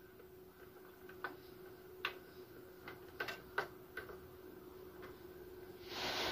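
Faint, irregular clicks and taps from hands working on parts inside a desktop PC case, about one a second, followed near the end by a brief rustle as the hands pull away.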